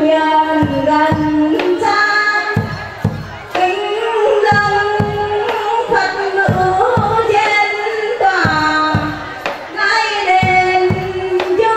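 A woman singing a slow, drawn-out melody into a microphone over instrumental backing with a steady beat: music for an incense-offering ritual dance.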